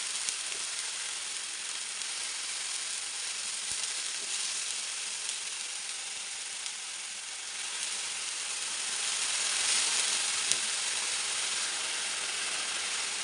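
Finely chopped onions sizzling steadily in hot oil in a non-stick frying pan, stirred now and then with a spatula. The sizzle grows a little louder about nine seconds in.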